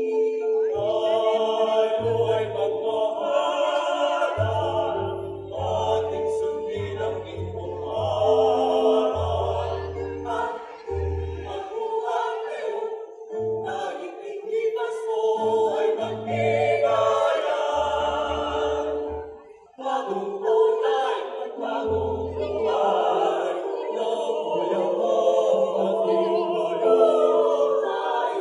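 Mixed choir of women's and men's voices singing in harmony, amplified through microphones and stage speakers. There is a short break about two-thirds of the way in before the singing resumes.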